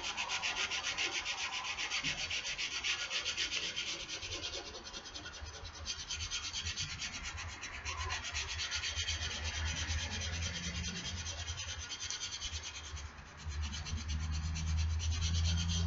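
Sandpaper rubbed rapidly back and forth over the rusty steel of an old axe head in quick, even strokes, taking the rust off. A low steady hum comes in about halfway through and grows stronger near the end.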